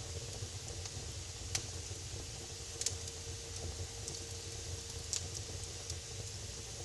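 Fireplace fire crackling: a steady hiss with a few sharp pops, the loudest about one and a half, three and five seconds in.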